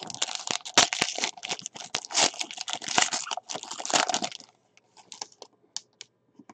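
Foil wrapper of a 2018 Playbook football card pack crinkling and tearing as it is ripped open by hand, for about four and a half seconds, then a few faint ticks as the cards are slid out.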